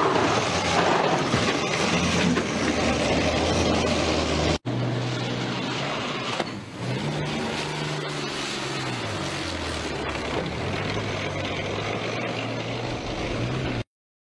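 BMP infantry fighting vehicle's diesel engine running at speed on a tracked run, heard in two shots joined by a cut about four and a half seconds in. In the second shot the engine's pitch drops and then climbs again between about six and nine seconds in. The sound cuts off just before the end.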